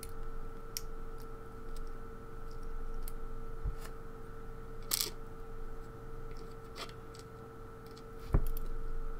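Small scattered metal clicks and ticks as steel tweezers work a pin spring out of a lock cylinder's pin chamber and set it in a pin tray. There is a sharper click about five seconds in and a dull knock near the end.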